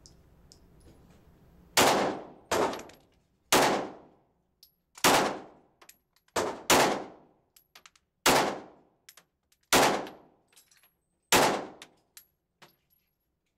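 Glock 34 9 mm pistol fired nine times at a slow, steady pace, each shot echoing off the walls of the indoor range. Faint clinks sound between the shots.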